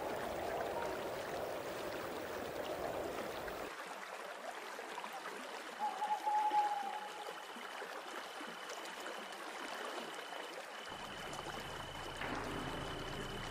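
Nature ambience of a forest waterfall: a steady rush of water with a high chirp from night creatures, repeating about once a second from about five seconds in, and one short call around six seconds. A different, airier ambience fills the first few seconds, and soft music comes in near the end.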